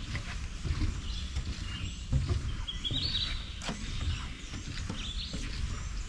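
Hooded warbler and red-eyed vireo singing short, high phrases, over a low rumble of footsteps on a wooden boardwalk.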